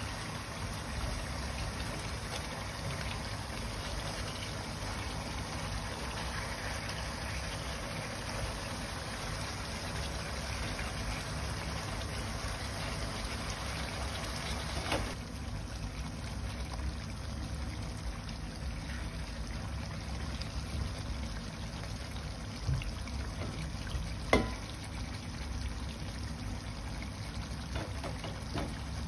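Adobo simmering in a frying pan on a gas burner: a steady bubbling hiss, with two short sharp knocks, one about halfway through, after which the hiss is softer, and one later on.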